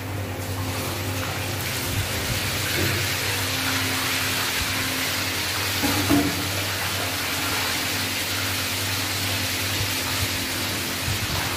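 A whole siakap (Asian sea bass), coated in salt and cornstarch, deep-frying in hot oil: a steady, dense sizzle that swells up in the first second as the fish goes into the oil and then holds.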